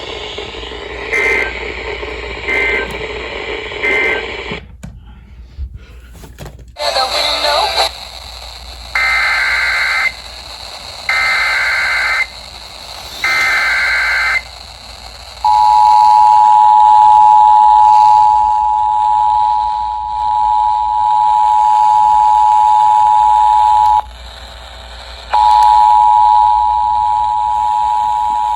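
Emergency Alert System tones: three short warbling data bursts about a second apart that end the previous message, then three longer data bursts that open the next alert, then the steady two-tone attention signal. The attention signal sounds for about eight seconds, breaks off for a second or so, and then starts again.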